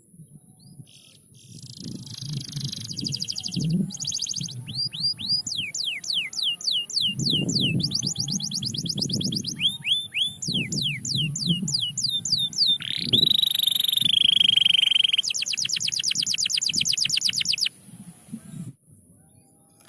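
Domestic canary singing a long, varied song: rapid trills, a run of quick falling whistles, a rising note drawn into a long held tone, then a fast rattling trill that stops abruptly near the end.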